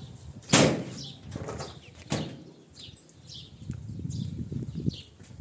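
A large black cloth being shaken out, snapping sharply twice, about half a second and two seconds in. Small birds chirp throughout in short, falling peeps.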